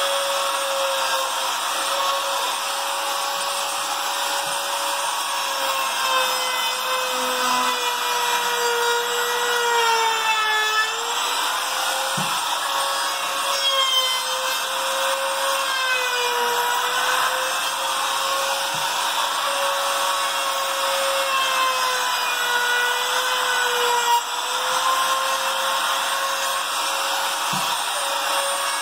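Handheld trim router running at full speed, its bit cutting a 45° chamfer along the edges of wooden pieces. A steady high whine with the rasp of the cut, its pitch sagging briefly a few times as the bit takes the wood under load.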